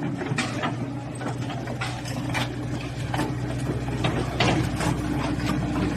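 Komatsu PC60-7 excavator's diesel engine idling steadily, with irregular light clicks and knocks over it.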